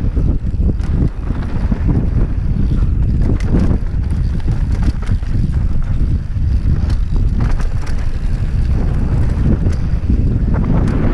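Heavy wind buffeting on a helmet camera's microphone as a mountain bike descends a dirt and gravel trail at speed, with tyre rumble and scattered knocks and rattles from the bike over stones and bumps.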